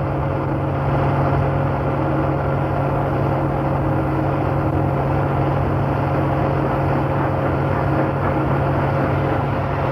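A vehicle engine running at a steady pitch: an even low hum with a fainter steady higher tone, unchanging throughout.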